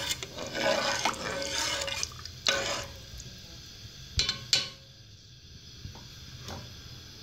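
Water in a metal pot being stirred with a spoon, swishing for the first few seconds, then two sharp taps of the spoon against the pot about four seconds in before the water goes quiet.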